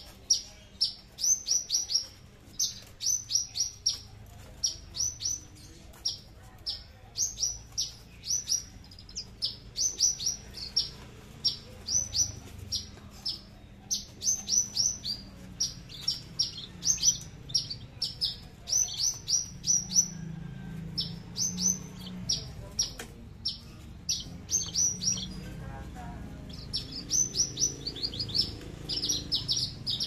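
Caged Javan bush lark (branjangan) of the Papuan 'aliena' type singing: fast runs of high, sharp downward-sweeping notes in quick clusters with no low notes, pausing briefly about three-quarters of the way through.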